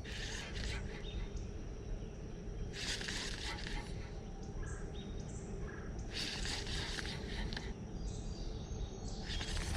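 Outdoor creek-side ambience: insects buzzing in swells about a second long, roughly every three seconds, over a steady low rumble.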